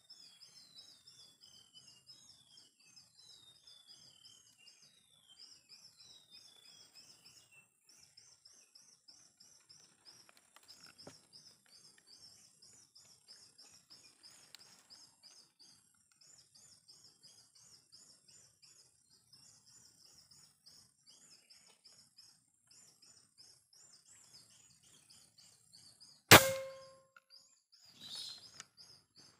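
A steady high chorus of insects, with a bird giving a run of about six descending whistles at the start. Near the end, a single sharp crack of a Jawara Mouser OD32 PCP air rifle firing, followed about two seconds later by a quieter rattle.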